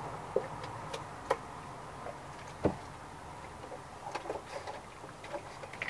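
Scattered light clicks and knocks from hands washing a wet miniature schnauzer in a plastic tub, with one louder knock about two and a half seconds in.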